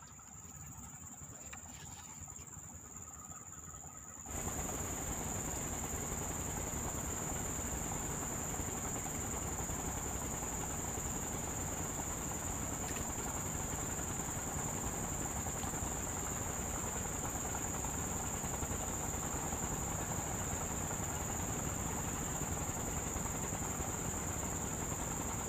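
Steady electronic hiss with a constant high-pitched whine from a zoom camera's faulty audio, cutting in suddenly about four seconds in after faint background noise.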